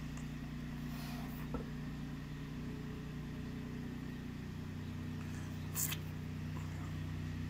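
A steady low mechanical hum, with a faint tick about one and a half seconds in and a brief scrape near six seconds.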